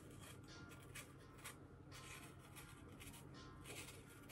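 Faint, irregular scraping of a kitchen knife paring the skin off a persimmon, the peel coming away in one long strip.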